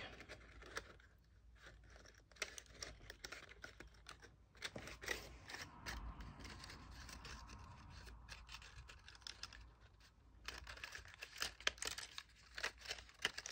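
Folded cardstock being pressed and shaped by hand: scattered small crackles, rustles and clicks of stiff paper, coming thicker near the end.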